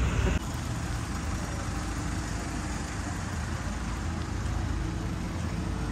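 Steady low rumble of motor vehicle engines idling and running on the road, a little louder for the first half second.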